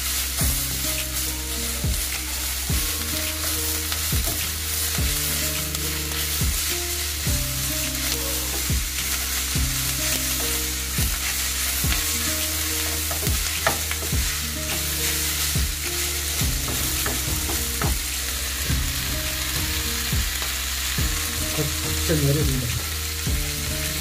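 Beef fry with onions and green peppers sizzling steadily in a non-stick pan while it is stirred and tossed with a wooden spatula, with frequent light scrapes and clicks of the spatula. Low background music with stepped notes plays underneath.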